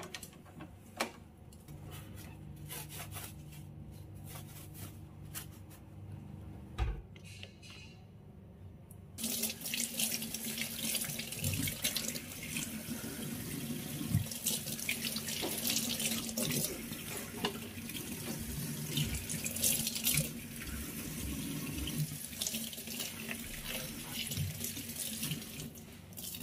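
Light rubbing and a few small knocks at first. Then, about nine seconds in, a kitchen tap is turned on and water runs steadily from its spout into a stainless steel sink while hands rinse and squeeze a soapy sponge under the stream.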